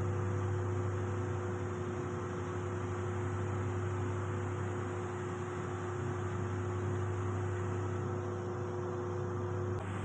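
Steady machinery hum of a ship's machinery space, a low drone with a faint steady tone and even hiss over it. No wrench clicks stand out. The higher tone cuts off suddenly near the end.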